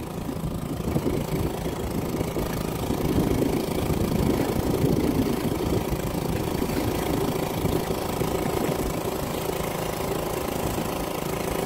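Small boat's motor running steadily at idle.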